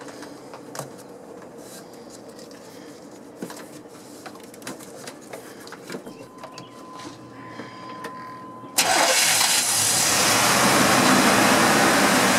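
Light clicks and taps of hand work on the engine, then about nine seconds in the truck's 5.0-litre (305) V8 abruptly starts and runs loudly after its intake manifold gasket replacement.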